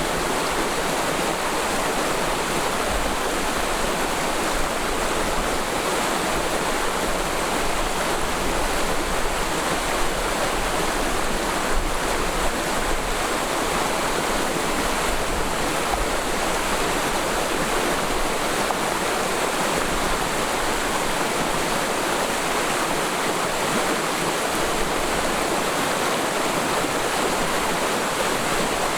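Mountain stream flowing steadily through a forest valley, water rushing and splashing over rocks.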